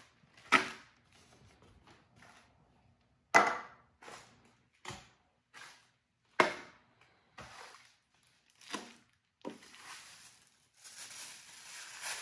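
Handling noise from unpacking a cardboard kit box: a string of separate knocks and clacks as parts are lifted out and set down on a table, three of them sharp and loud. Near the end comes a steady crinkling rustle of tissue paper being lifted and unfolded.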